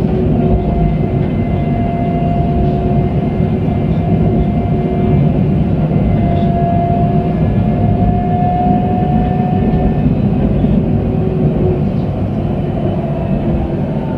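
Alstom Citadis tram running at speed, heard from inside the car: a steady low rumble from the wheels on the rails, with a steady whine that rises slightly about eight seconds in.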